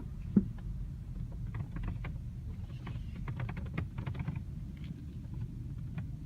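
Steady road rumble inside a moving BMW F30 3 Series, with one sharp knock about half a second in, then clusters of quick creaking clicks from the doors. The owner traces the creak to the door rubber seal rubbing against the Shadow Line trim, a fault typical of the F30.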